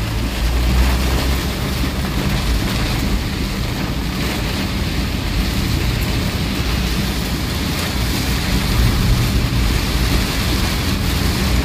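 Heavy rain pelting a moving vehicle and its windscreen, heard from inside the cabin as a steady hiss over the low hum of the engine and tyres on the flooded road.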